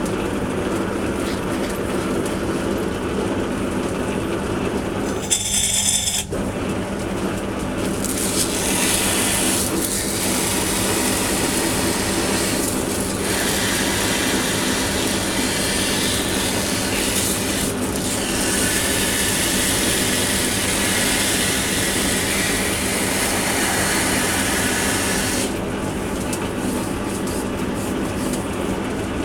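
Metal lathe running with a steady motor hum while a bar is turned down for a spindle. For most of the middle a hissing scrape is added as the tool works the turning metal, and it stops well before the end.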